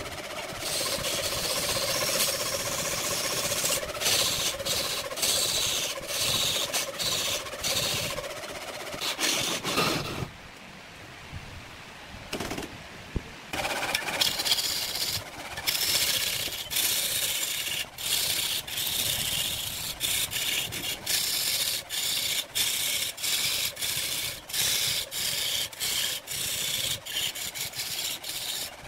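A steel lathe tool cutting into a large spinning log: a rough, continuous scraping of metal on wood, broken by many brief gaps as the tool lifts off. About ten seconds in, the cutting stops for a few seconds and then resumes.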